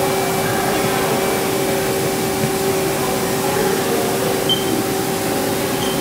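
CNC lathe spindle running at a steady speed: a constant hum with a steady whine. Two short high beeps from the control's keypad, about four and a half seconds in and again near the end.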